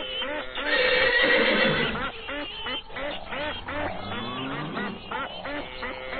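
Farmyard animal calls: a dense chorus of short, repeated calls, with one louder, longer call about a second in.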